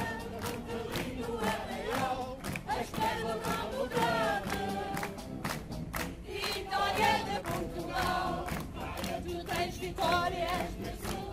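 A group of voices singing a folk song together in chorus, with hand clapping running through it and crowd noise behind.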